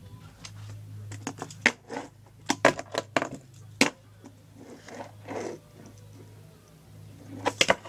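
Tech Deck toy fingerboard clacking on a tabletop as fingers pop and land tricks: a run of sharp clicks and knocks, bunched from about a second and a half to four seconds in and again near the end, over a low steady hum.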